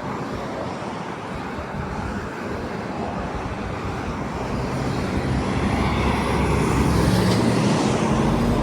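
Road traffic: a steady rush of passing cars, with a vehicle's engine growing louder over the last few seconds before the sound cuts off suddenly.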